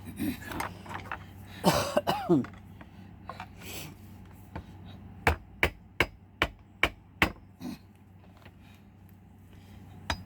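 Hammer strikes on a safe being forced open: a run of about eight sharp blows, roughly three a second, in the second half. Earlier, about two seconds in, there is a brief, loud vocal sound with a falling pitch.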